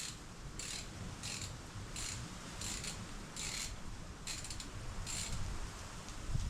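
Hand socket ratchet clicking in repeated short strokes, about one stroke every 0.7 seconds, as a bolt is turned.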